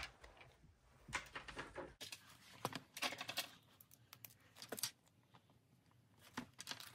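Faint scratching and tapping of a pen writing on paper in a budget planner, in short irregular strokes, with soft rustling of paper and binder handling.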